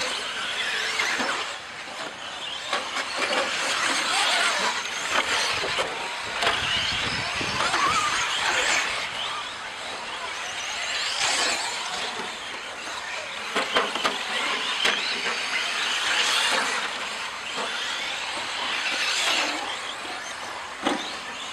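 Several 1/10-scale electric 4WD short course RC trucks racing on a dirt track: their motors whine, rising and falling again and again as the trucks accelerate and brake through the corners, with tyre and chassis rattle underneath.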